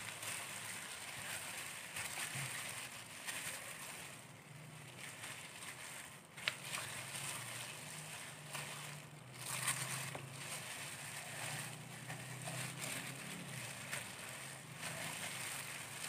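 Plastic-gloved hands rubbing marinade into a whole raw chicken: plastic crinkling and wet squishing, with a sharp click about six and a half seconds in. A faint low hum runs underneath.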